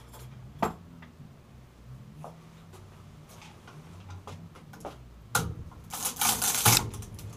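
Scattered clicks and taps of a screwdriver working at the copper windings of an electric motor stator held in a vise, freeing a hacksaw blade that has jammed in the cut. Near the end comes a short burst of metallic scraping and clinking, the loudest part.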